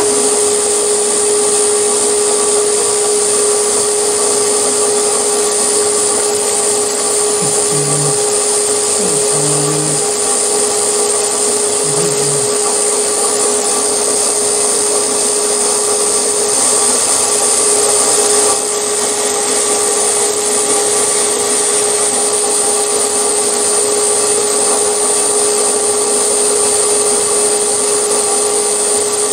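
Milling machine spindle running steadily at speed, turning a spotting drill over an aluminium block: a constant motor hum with a high whine over an even mechanical noise.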